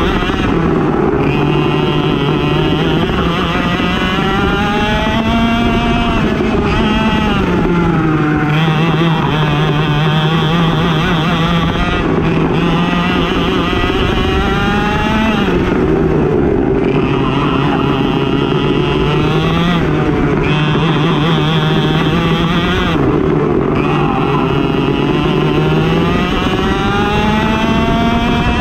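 Racing kart engine at full throttle around the track. Its pitch climbs steadily along each straight, then drops sharply into each corner, repeating every few seconds.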